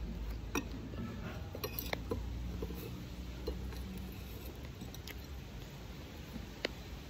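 Metal spoon clinking and scraping against a glass bowl of açaí and a plate of food, a few sharp separate clinks.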